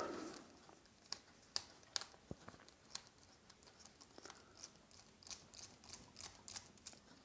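Precision screwdriver turning a long screw out of a small plastic dynamo flashlight housing: faint, irregular small clicks and scrapes.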